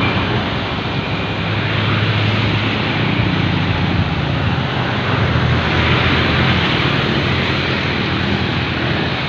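Medium tour bus going by on the road, its diesel engine a steady low drone under tyre and road noise.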